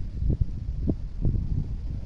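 Wind buffeting the microphone: an irregular low rumble with gusty thumps every few tenths of a second.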